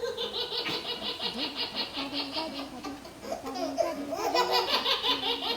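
A baby laughing hard in two long runs of quick, breathy pulses, with a brief pause about three seconds in.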